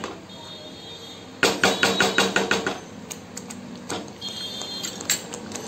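Metal utensils knocking against a cooking pan: a quick run of about eight sharp clacks about a second and a half in, then a few single taps.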